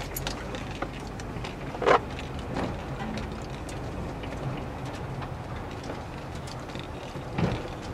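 Car cabin noise from a slowly moving car: a steady low engine and road rumble, with a sharp knock about two seconds in and a softer thump near the end.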